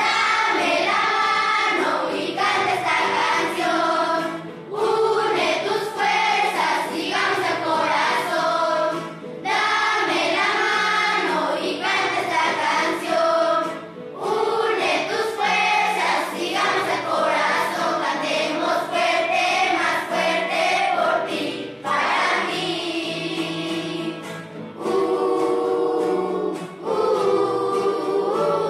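A group of schoolchildren singing together as a choir, phrase after phrase, with short breaks between the phrases.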